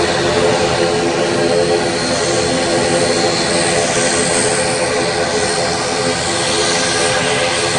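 ATR 72 turboprop's two Pratt & Whitney PW127M engines and propellers running at high power on the takeoff roll: a steady propeller drone with a hiss on top that swells a little from the middle on.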